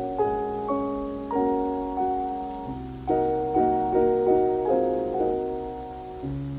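Piano music: chords and a melody over held bass notes, each note struck and then fading.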